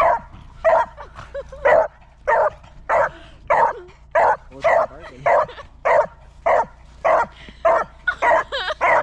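A beagle barking over and over in a steady rhythm, about one short bark every 0.6 seconds with no pause.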